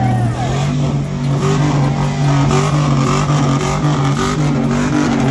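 Pickup truck engine running loudly close by, a steady low drone with higher tones stepping up and down over it.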